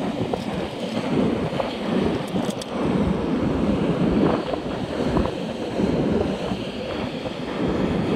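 Sea surf and wind buffeting the microphone: a steady rushing noise that swells and dips.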